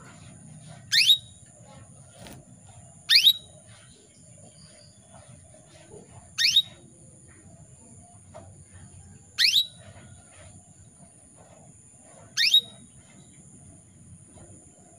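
Female canary giving five short, sharp contact calls spaced about three seconds apart. This is the call a female in breeding condition uses to call a male. A faint, steady high-pitched whine runs underneath.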